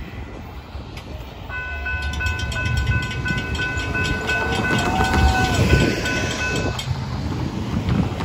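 Railroad crossing warning bell ringing in quick repeated strokes while the gate arms rise, cutting off suddenly near the end, over a low rumble of the freight train pulling away.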